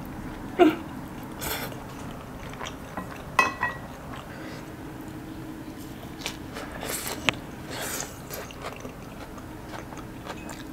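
Eating sounds: a slurp of spaghetti about half a second in, then chewing and crunchy bites of lettuce salad, with scattered short crackles and clicks.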